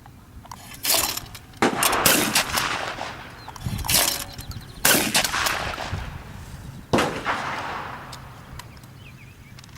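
Shotgun shots at clay targets: several sharp reports a second or more apart, the loudest about a second in, near two seconds, near five and near seven seconds, each followed by a trailing echo.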